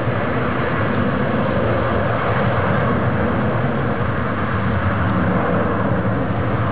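Distant jet engines of an Airbus A300-600ST Beluga, its two General Electric CF6-80C2 turbofans, running at takeoff power during the takeoff roll: a steady roar without change.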